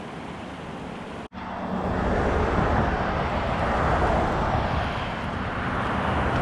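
Road traffic on a highway: steady tyre and engine noise of passing vehicles, beginning after a sudden cut about a second in and swelling as a vehicle goes by.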